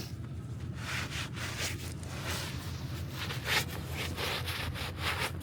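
An ice scraper scraping ice off a car's windows in repeated strokes, about two a second.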